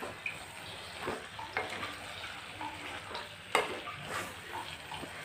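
A spatula stirring and scraping thick beef masala around a frying pan, with a light sizzle of the fry underneath. There are several sharper scrapes, the strongest about three and a half seconds in.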